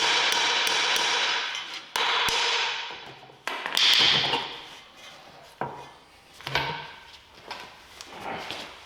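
Metal clanking: a sharp hit at the start and another about two seconds in, each ringing and fading away, followed by smaller knocks and clinks of metal parts and tools being handled.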